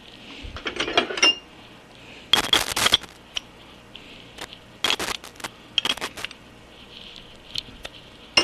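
Small open-end wrench clinking and rattling against a jam nut on a lathe apron casting as the nut is turned down and tightened: several short bursts of light metallic clicks.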